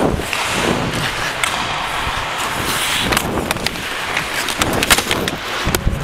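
Hockey game sounds: skates scraping over the rink and sharp clacks of sticks and puck, several in quick succession about five seconds in.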